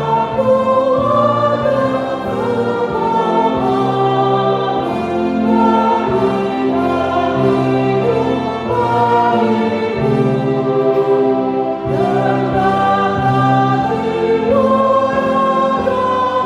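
Choir singing a hymn in held notes that step from one pitch to the next.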